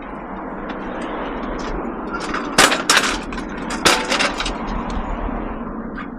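Washing machine being handled on a sack trolley: a cluster of loud metallic clanks and knocks about two and a half to four and a half seconds in, over a steady rumbling noise.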